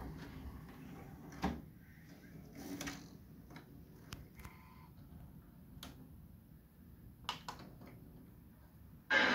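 Sony EV-S9000E Hi8 video recorder's front control panel opening with a short sliding noise about three seconds in, among scattered light clicks of its buttons being pressed. Sound from the playback, speech and music, starts abruptly just before the end.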